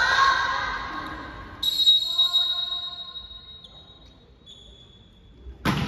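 Volleyball players calling out in a gym hall. A high, steady tone sounds suddenly and fades away over a couple of seconds, and near the end a volleyball is struck with one sharp smack.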